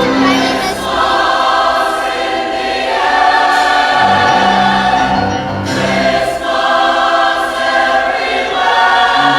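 A choir singing sustained chords that change every second or two.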